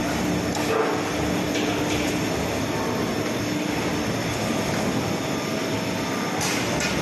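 Steady mechanical running noise of an Amada EML Z3510NT CNC punching cell and its automatic sheet loader, with a few short hisses of air.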